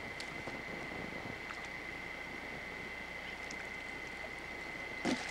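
Steady faint hiss with a thin high whine, and about five seconds in a short splash as a child's plastic ring toy is thrown into shallow lake water.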